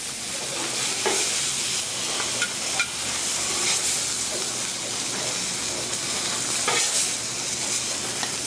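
Filet mignon steaks sizzling steadily on a hot flat-top griddle, with a few short scrapes and clicks of a metal spatula on the griddle surface as the fillets are lifted off.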